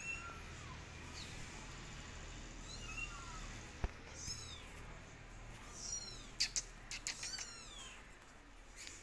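Kittens mewing: a string of short, high, thin calls, each falling in pitch, coming thicker in the second half. A few sharp clicks stand out as the loudest sounds.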